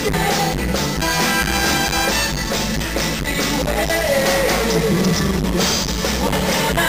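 A live band playing: drum kit and congas keeping a steady beat under electric bass, with a singer's voice over the top.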